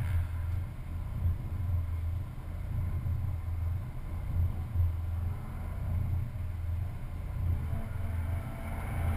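Car engine idling with a low, steady rumble, picked up by a camera mounted on the outside of the car's door.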